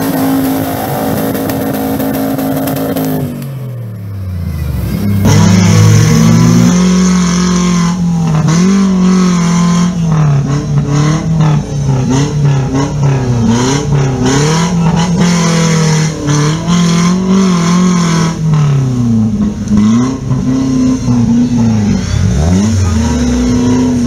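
Engine of a modified off-road 4x4 revving hard under load in deep mud. Its pitch climbs and drops again and again as the driver works the throttle.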